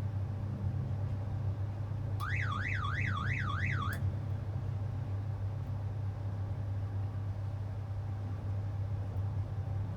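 A mobile crane's wind alarm warbles briefly about two seconds in, fast rising-and-falling sweeps about three a second, warning that gusts are over the wind limit. The crane's engine runs with a steady low hum throughout.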